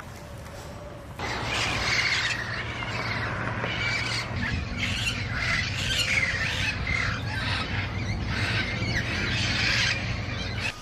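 Feral parrots squawking and chattering, many harsh calls overlapping. The calls start abruptly about a second in.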